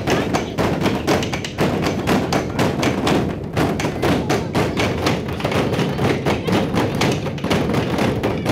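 Many people beating the giant 14-foot drum Fuinneamh with sticks at once: a loud, dense run of overlapping thuds and taps with no single steady beat.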